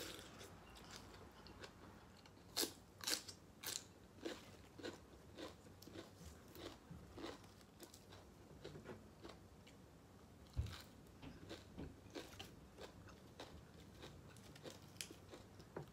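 A person eating pho close to the microphone: chewing and biting, with irregular crunchy clicks, the sharpest of them a few seconds in.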